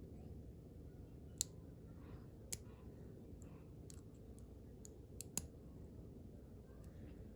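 Lock pick and tension wrench clicking inside a five-pin padlock as the pins are picked: four sharp clicks among lighter ticks.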